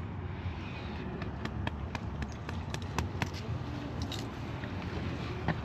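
Steady low outdoor rumble with scattered light clicks and ticks.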